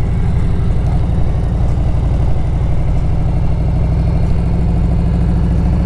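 Harley-Davidson CVO Road Glide's Milwaukee-Eight 117 V-twin running at a steady pitch under way, heard from the saddle.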